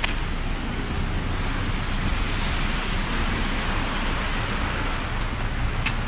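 City traffic noise on wet streets: a steady hiss of tyres on wet pavement with a low rumble beneath, swelling around the middle.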